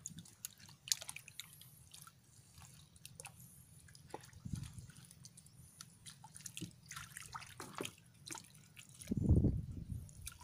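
Hands groping in shallow muddy water, making small scattered splashes, drips and wet clicks as snails are picked out of the mud. A louder dull low thump comes about nine seconds in.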